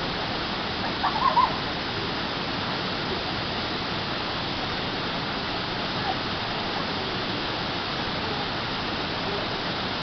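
Waterfall of about 8–10 m pouring steadily into a pool: a constant rush of falling water. About a second in, a brief call of three or four short notes rises above it.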